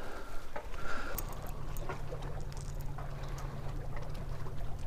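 Steady low wind rumble on the microphone, with faint clicks and rustles of hands handling a plastic tackle box and a square-bill crankbait.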